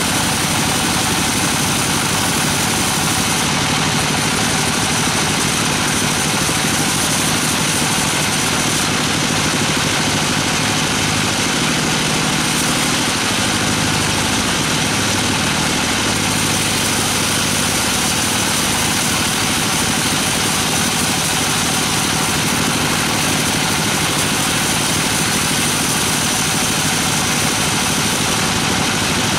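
Large band sawmill running steadily, its blade ripping a gmelina log lengthwise into slabs.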